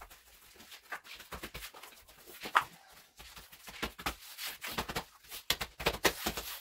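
Interlocking foam puzzle floor mats being fitted together by hand: a run of short taps, knocks and rubs as the tiles are pressed and pushed into place, busier in the second half, with one sharper knock about two and a half seconds in.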